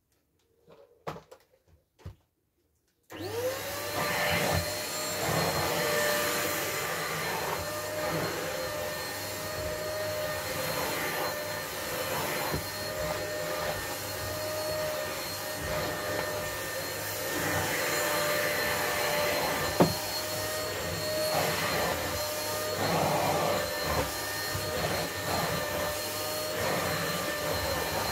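A few small knocks, then about three seconds in a corded stick vacuum cleaner switches on, its motor whine rising quickly and settling to a steady pitch. It runs on steadily over the rug, the sound swelling and easing as it is pushed about, with one sharp click near the twenty-second mark.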